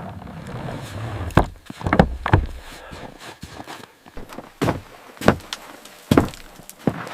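A series of irregular knocks and thumps, with a low rumble during the first second or two.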